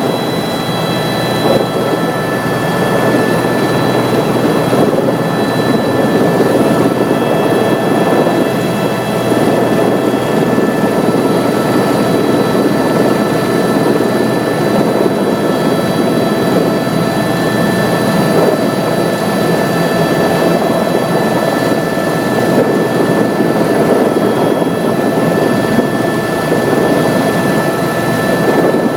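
Tour helicopter in flight, heard from on board: a loud, steady rush of rotor and engine noise, with several thin, steady whines above it.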